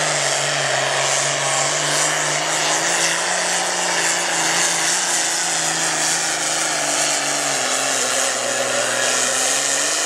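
International Harvester farm tractor's diesel engine running flat out under heavy load while pulling a weight-transfer sled. It is loud and steady, and its pitch sinks slowly over the last few seconds as the engine is pulled down by the sled.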